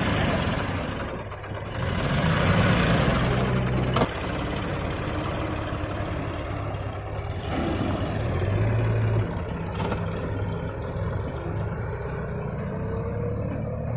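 John Deere 5204 tractor's diesel engine working under load as it pulls a trailer heavily loaded with sand, its note getting louder about two seconds in, with a single sharp click about four seconds in.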